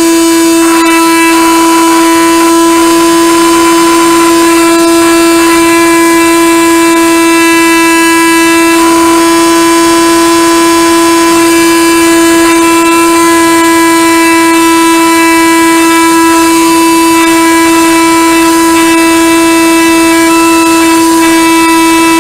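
Model airplane's motor and propeller running at steady throttle, heard close up from the onboard camera as a loud, constant whine.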